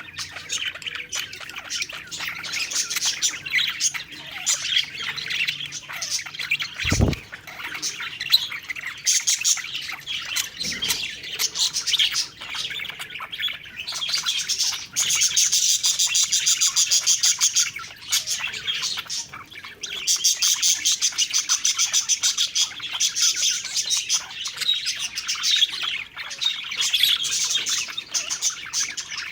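Several budgerigars chirping and chattering without a break, with stretches of fast, rattling warble in the middle. There is a brief low thud about seven seconds in.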